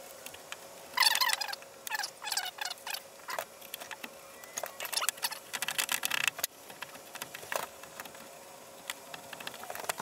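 Chisel and router plane cutting a shallow mortise in wood, in short, squeaky scraping strokes that come in bunches and thin out near the end.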